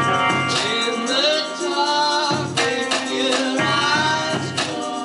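Live band playing: a voice singing over electric guitar.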